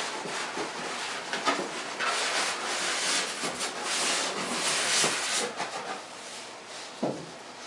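Cardboard box sleeve scraping and rubbing as it is slid up off an inner box, fading out at about six seconds, followed by a short knock a second later.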